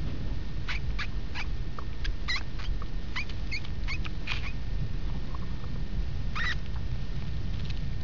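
Mouse squeaking: a string of short, high squeaks, most of them between about one and five seconds in, then a longer squeak at about six and a half seconds.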